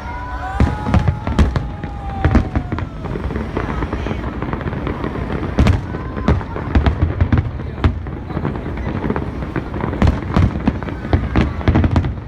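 Aerial fireworks going off in quick, irregular succession: many sharp bangs and cracks over a continuous deep rumble of shell bursts.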